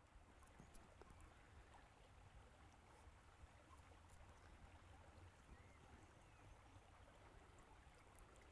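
Near silence: faint, steady outdoor ambience, the quiet flow of a small stream.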